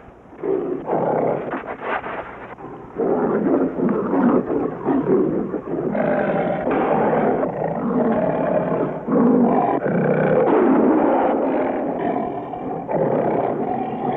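Bengal tigers growling and snarling as they wrestle in the snow, in rough bursts that begin about half a second in and grow louder and more continuous after about three seconds.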